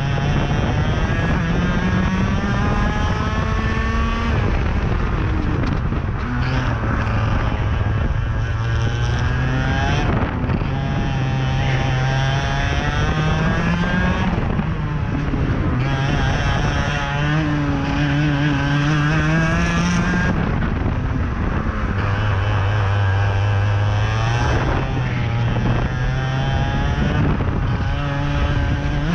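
IAME X30 125cc single-cylinder two-stroke kart engine at racing speed, heard from the driver's seat. Its pitch climbs as the kart accelerates down the straights and drops each time it slows for a corner, several times over.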